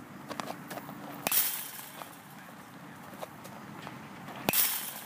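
Baseball bat hitting a ball off a batting tee twice, about a second in and again near the end, each crack followed by a brief ringing tail.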